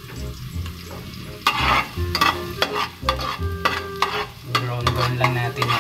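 Minced garlic sizzling in hot oil in a metal pot while a ladle stirs and scrapes it against the pot. The scraping strokes come thick and fast from about a second and a half in.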